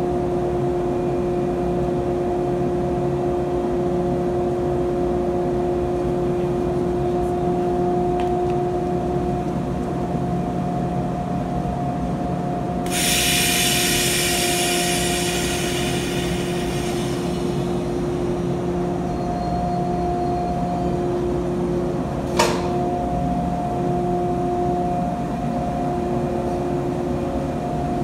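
A JR East 485 series electric train standing at a platform, its onboard machinery giving a steady hum of several even tones. About halfway through, a burst of air hisses for about four seconds. A single sharp click comes a few seconds later.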